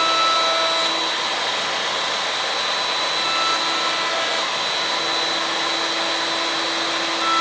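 Router running steadily in a router table with a roundover bit, rounding over the edge of a thin strip of cherry loose-tenon stock: a constant high whine over a steady rush of motor noise.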